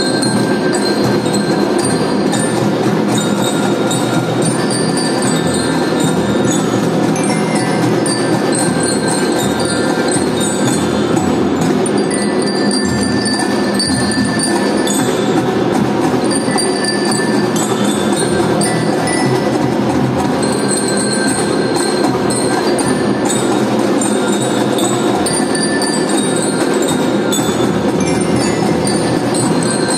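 Children's marching drum band playing a tune: metal bell lyres ring out the melody over a steady beat of marching drums.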